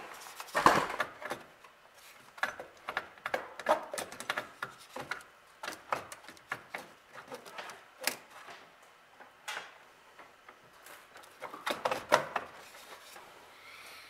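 Irregular clicks, knocks and rattles of a 1948 Chevrolet's instrument cluster being worked loose by hand and pulled forward out of the dash. There is a louder knock about a second in and another bunch of knocks near the end.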